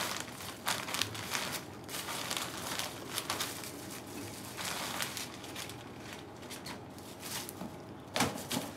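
Rustling and crinkling of a clear plastic wrapper and a nylon carry bag as a tripod is pulled out and handled, in irregular bursts.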